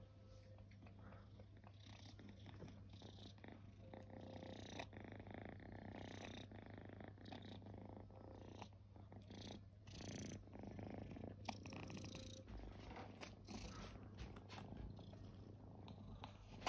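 Cat purring faintly and steadily while being scratched on the head and under the chin, with a few soft rustles and knocks of handling.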